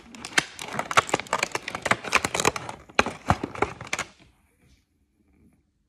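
Clear plastic packaging of a craft kit crackling and clicking as it is handled, in quick irregular snaps that stop about four seconds in.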